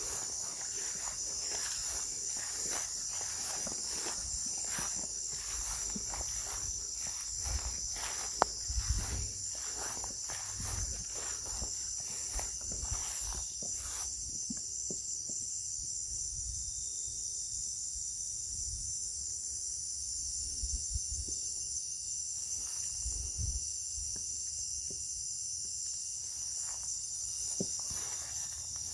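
A steady, high-pitched chorus of night insects, crickets trilling. Through the first half come footsteps and the rustle of brush, which stop about halfway through.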